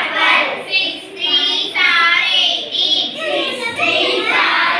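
Children's voices reciting a multiplication table in Tamil, in a sing-song chant.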